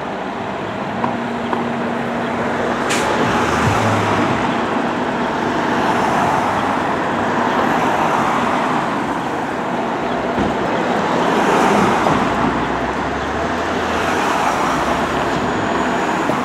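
Road traffic on the street, cars driving past in waves that swell and fade, with a sharp click about three seconds in.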